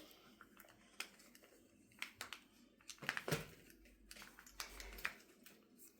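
Faint scattered clicks and taps of a Shashibo magnetic puzzle cube being folded by hand, its plastic pieces knocking and snapping together, with a low handling rumble in the middle.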